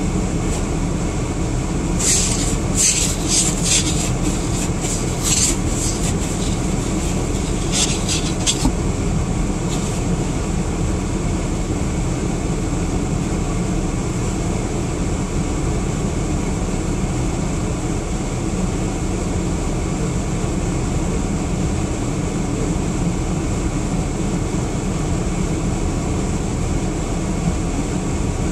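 Car's heater and defroster fan blowing steadily with the engine idling, while ice on the windshield melts. A run of sharp clicks comes about two to nine seconds in.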